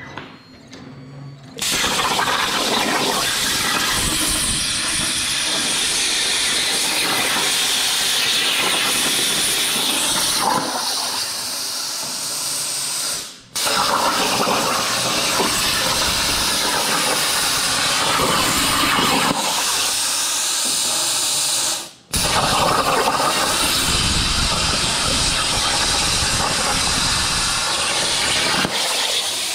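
CNC plasma cutter torch cutting aluminum diamond plate at 40 amps: a loud, steady hiss of the arc and air that starts about two seconds in. It cuts out briefly twice, around halfway and again about two-thirds in, and restarts each time.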